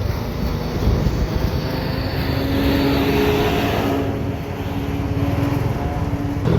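Heavy, steady rumble of a large bus's engine and road noise, with a few faint held tones over it from about two seconds in.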